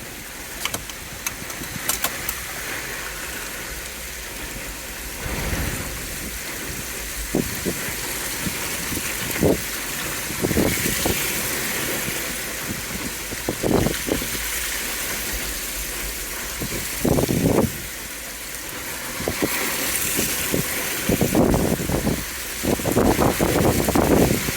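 Jeep Wrangler driving, with a steady engine and road rumble and several short, loud bursts of noise, the longest group near the end.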